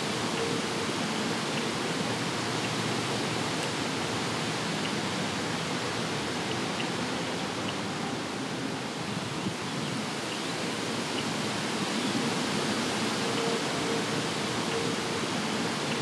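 Steady, even rushing noise, unchanging throughout, with no distinct events.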